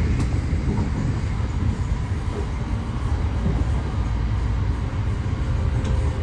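Passenger train running, heard from inside the carriage: a steady low rumble, with a faint click near the start and another near the end.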